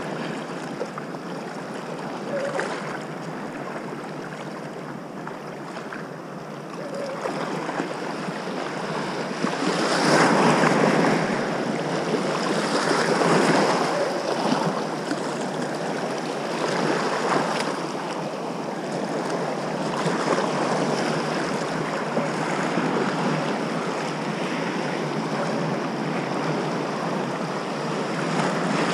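Small sea waves washing and splashing against a rocky shoreline, surging every three to four seconds, loudest about ten seconds in.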